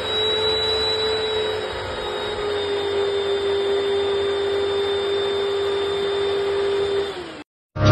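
Upright vacuum cleaner running while its hose sucks a girl's hair up into a ponytail: a steady motor whine over rushing air that drops slightly in pitch about two and a half seconds in, then winds down and cuts off near the end.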